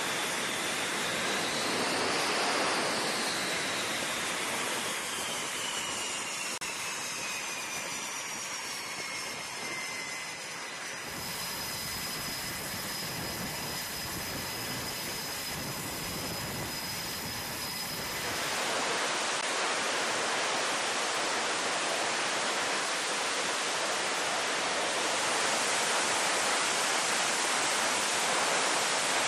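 F/A-18 Hornet jet engines running on a carrier flight deck: a steady jet rush with high turbine whines, several sliding down in pitch in the first few seconds. The sound changes abruptly twice, at about 11 and 18 seconds.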